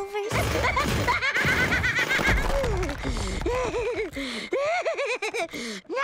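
Cartoon sound effects and a character's wordless vocal noises: a noisy clatter with warbling high squeals in the first couple of seconds, then swooping, wavering cries and exclamations, over background music.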